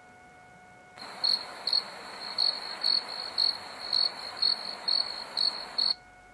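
Cricket chirping sound effect: regular sharp chirps about twice a second over a steady hiss, switching on about a second in and cutting off suddenly just before the end.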